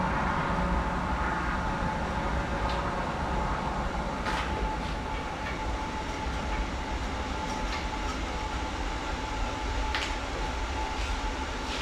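A steady mechanical hum and rumble with a constant mid-pitched tone, broken by a few light clicks.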